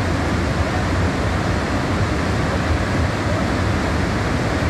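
Floodwater rushing through a dam's open spillway gates and crashing down below: a steady, loud, unbroken rush, heaviest in the low rumble.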